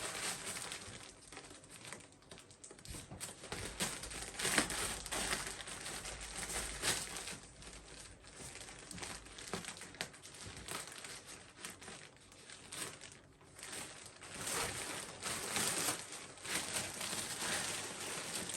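Parcel packaging crinkling and rustling as it is opened and its contents are pulled out, in irregular handling bursts.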